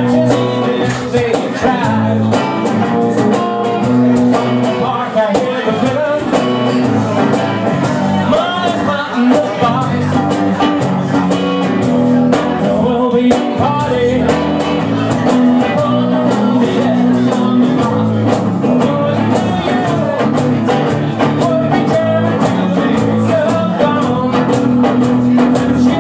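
Blues-rock power trio playing live: electric guitar with bending, gliding notes over bass and percussion keeping a steady beat.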